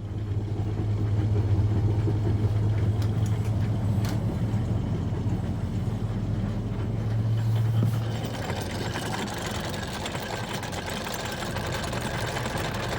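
Boat engine running steadily while the anchor chain is let out. The low hum gives way about eight seconds in to a harsher, noisier sound.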